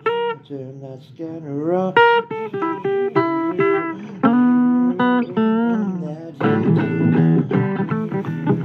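Blues recording playing: acoustic guitar with a voice singing, some notes held and bent.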